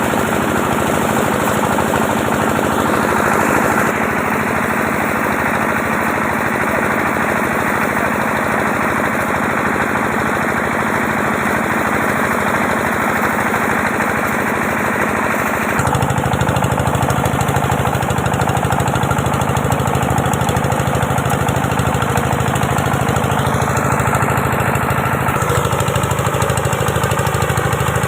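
A small engine running steadily with a fast, even chugging pulse; its tone changes abruptly about halfway through, becoming deeper.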